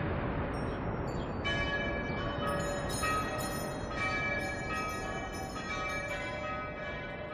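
Church bells ringing, several bells of different pitch struck in turn from about a second and a half in, each note hanging on, over a steady rushing noise.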